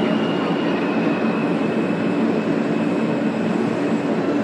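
R160 subway train running along the track, heard from inside the car: a steady rumble of wheels and motors with a faint high whine riding over it.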